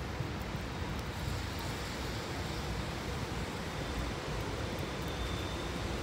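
SEPTA Silverliner IV electric multiple-unit train approaching, heard as a steady low rumble mixed with wind noise on the microphone. A thin, faint high tone joins about four seconds in.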